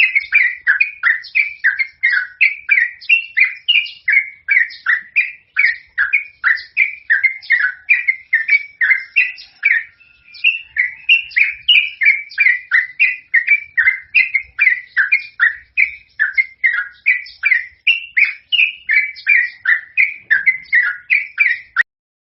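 Yellow-vented bulbul (trucukan) in full song: a long, unbroken run of short, loud chirping notes, about three a second. There is a brief break about ten seconds in, and the song cuts off abruptly near the end.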